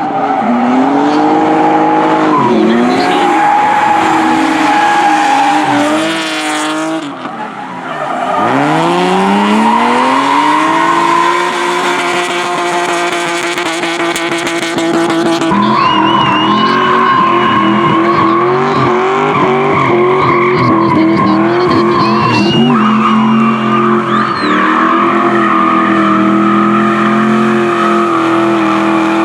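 Drift car engines held at high revs through slides, with tyres squealing and skidding. The engine pitch drops about seven seconds in, then climbs again as the car accelerates.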